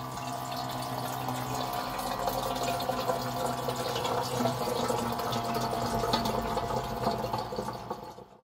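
Water from a small electric pump dispenser running into a stainless steel kettle, filling it, over the steady hum of the pump motor. The sound cuts off abruptly near the end.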